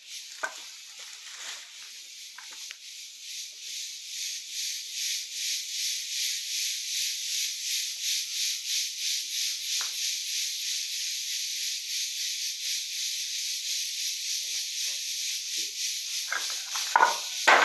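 Insects buzzing in a high, pulsing hiss, about three or four pulses a second, growing louder over the first few seconds and then holding steady. A few faint knocks and rustles, with a couple of louder ones near the end.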